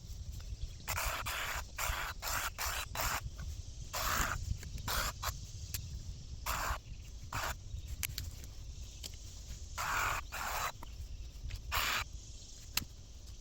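Irregular short rustling, swishing bursts of brush and vegetation being cut and pulled by hand, over low wind rumble on the microphone.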